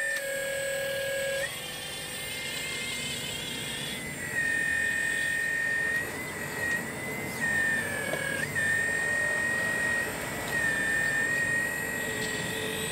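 Radio-controlled model CAT 6015B excavator's hydraulic pump giving a high, steady electric whine that dips and rises in pitch and loudness several times as the boom and bucket are worked under load.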